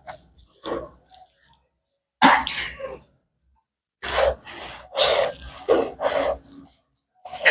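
Close-miked mouth and breath sounds of a person eating by hand: a series of short, noisy bursts with silence between them, the loudest a little over two seconds in.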